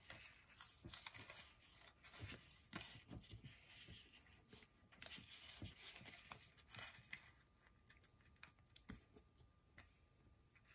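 Faint, irregular rustling and creasing of square sheets of paper being folded by hand against a tabletop. The sounds thin out after about seven seconds.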